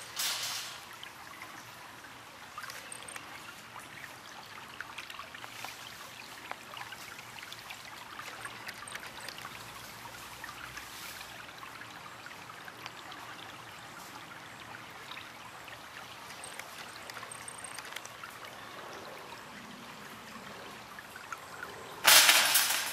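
Shallow stream trickling over rocks: a steady, gentle water sound with many small splashy crackles. Near the end comes a sudden, much louder burst of noise lasting about a second.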